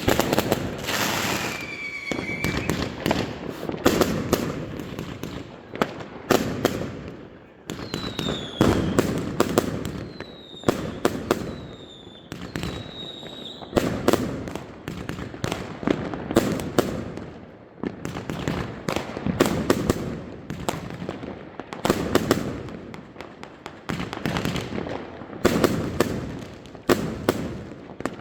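Fireworks going off in quick succession: repeated sharp bangs of bursting shells with crackle between them. Several short falling whistles sound about a quarter to halfway through.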